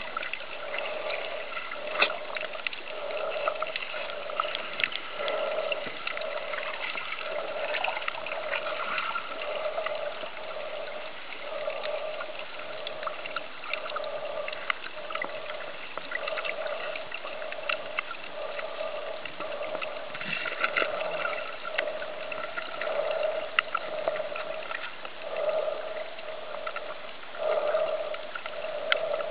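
Underwater sound picked up by a snorkeling camera: a steady water hiss with scattered sharp clicks, and a humming tone that swells and fades about once a second.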